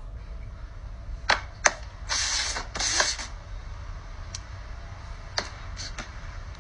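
A dog sneezing twice, two short hissing bursts of air about half a second apart, with a few light clicks around them.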